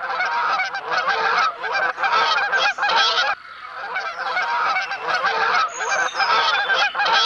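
A group of geese honking in rapid, overlapping calls, in two long runs with a short break about three and a half seconds in.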